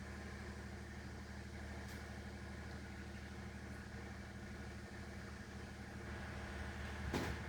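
Steady low mechanical hum, with a short sharp scraping click about seven seconds in.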